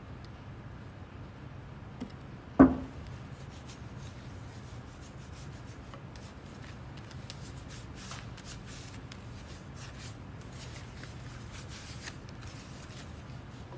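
A single sharp knock about two and a half seconds in, then soft rubbing as varnishing oil is worked into a small wooden panel by gloved hands, over a steady low hum.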